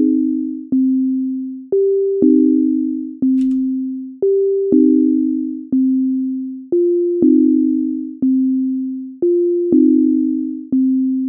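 Sonic Pi's default beep synth, a pure sine tone, playing a looping pattern: middle C, then a higher G, then C and E-flat together as a chord, repeating every two and a half seconds. Each note starts sharply and fades. About two-thirds of the way through, the higher note drops to F.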